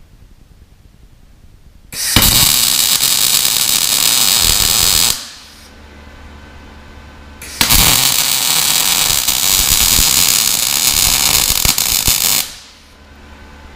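Sherman DigiMIG 200 MIG/MAG welding arc crackling and spattering in two runs, one of about three seconds and a longer one of about five seconds. A low steady hum is heard before, between and after the runs.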